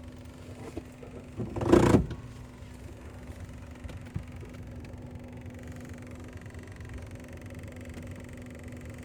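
2011 Kia Soul's engine running with a steady hum, broken about one and a half seconds in by a brief, loud burst of noise. It is the weird noise the owner has not yet traced; the exhaust pipe and engine were seen shaking, though the engine mounts look fine.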